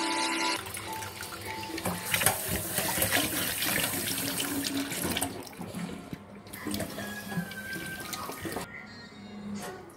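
Tap water pouring in a thin stream into a small steel bowl of raw pork chunks in a stainless steel sink, splashing as the meat is rinsed.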